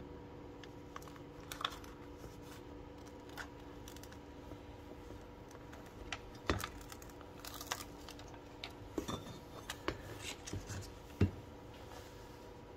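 Handling noise of air-intake prefilter panels being folded and pressed into their frame: scattered light clicks, taps and rubbing, busier in the second half, with the loudest knock near the end.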